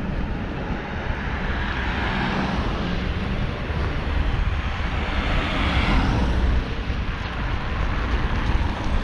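A car passing on the street, growing louder to its closest point about five or six seconds in and then fading, over a low rumble of wind on the microphone.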